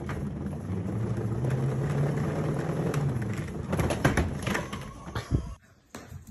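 Large upright cat exercise wheel rolling with a low rumble as a cat runs inside it, with a few sharp knocks about four seconds in. The rumble fades, then stops abruptly.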